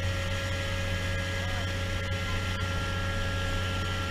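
Engine of an amphibious duck tour vehicle running steadily while it cruises on the water: a constant low drone with a faint steady high whine, over the churn of its wake.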